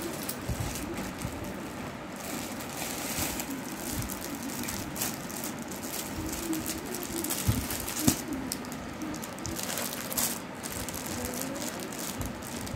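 Plastic packaging crinkling and rustling as a courier mailer bag and a clear polybag are handled, with a sharper crackle about eight seconds in.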